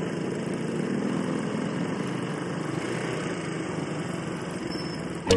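Motorcycle engine running steadily while riding, under a rush of wind noise.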